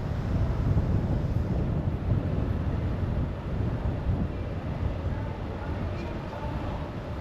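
A car driving, with a steady low rumble of wind buffeting the microphone over road noise.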